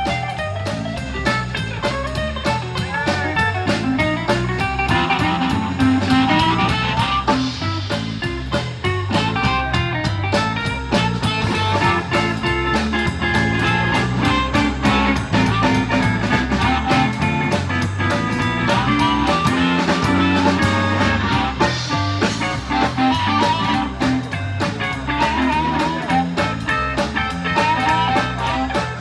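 Blues-rock band playing an instrumental break, with guitar over a steady drum beat.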